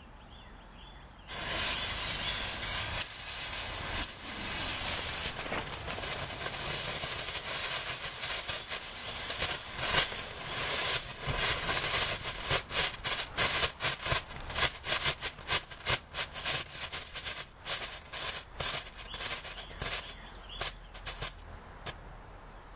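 Small firework novelty lit off: about a second in it starts spraying with a loud steady hiss, and from about halfway it breaks into many sharp crackling pops, coming fast and ending near the end.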